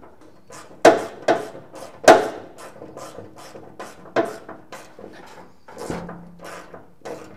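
A run of sharp knocks and clatter, about three a second and uneven, from tools and parts being handled at the car's firewall. The loudest knocks come about a second and two seconds in.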